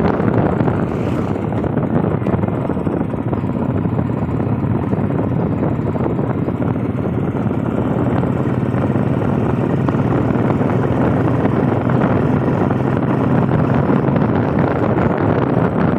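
Motorcycle riding at steady speed: engine running evenly under a rush of wind over the microphone.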